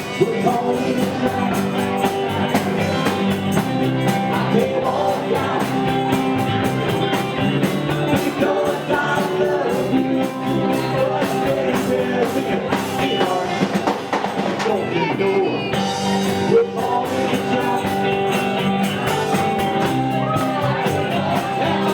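Live rock band playing with a singer: electric guitar, bass and drum kit, loud and steady throughout.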